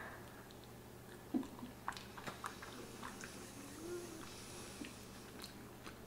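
Faint close-up chewing of soft macaroni in a creamy cheese sauce: small wet clicks and smacks scattered through, with a brief low hum about four seconds in.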